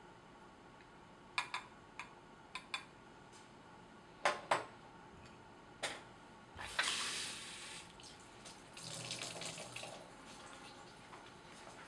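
A scattering of short, sharp clicks and knocks, then, a little past halfway, a hiss of running water that lasts about three seconds.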